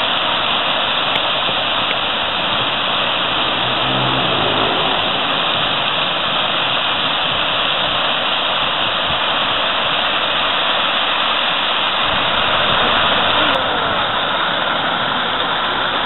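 Fountain water pouring from a raised bowl and jets and splashing into a pool, a steady rush of water; the tone shifts slightly near the end.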